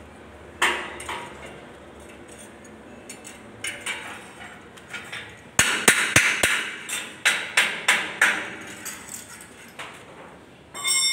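Sharp metal-on-metal knocks and clanks on steel machinery. There are two strikes about a second in, then a quick run of about two to three knocks a second through the middle. Near the end a single clang rings on briefly.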